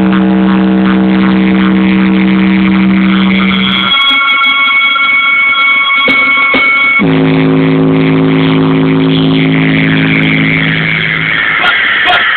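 Loud electronic music played through a car's aftermarket sound system: a long held low buzzy synth note, then a high held chord for about three seconds, then another low held note, with a falling high sweep near the end.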